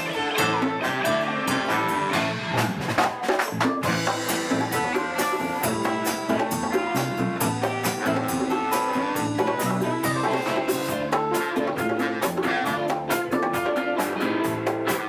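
Live blues band playing an instrumental jam: electric bass guitar, electric guitar and a drum kit, with regular drum and cymbal hits under held guitar notes.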